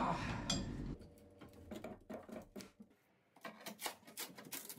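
A metal hand scraper chipping and scraping old paint and debris off a fibreglass boat engine bed, an irregular run of short scratchy clicks several to the second.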